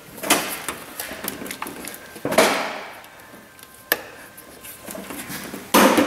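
Pliers and a plastic engine wiring harness clicking and knocking against the engine as the harness is worked loose and moved aside: four sharp knocks, the loudest about two seconds in and just before the end.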